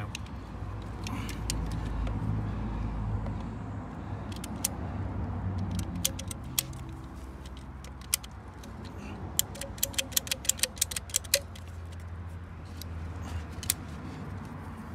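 Ratchet pipe cutter clicking as it closes on a black plastic water pipe to nip off a length. A few single clicks come first, then a quick run of about ten clicks in the middle and one more near the end, over a low steady rumble.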